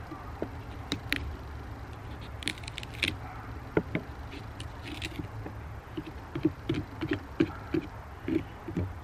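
Long kitchen knife sawing into the wall of a raw pumpkin: irregular crunching, scraping strokes, which turn into a quicker run of short strokes, about three a second, near the end.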